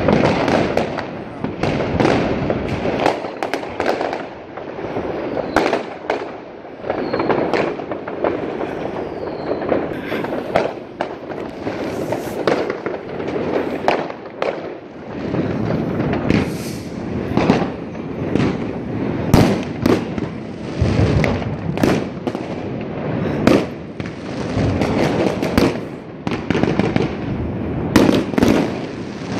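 Fireworks going off all around: a continuous din of crackling and distant bangs, with many sharp, louder bangs throughout.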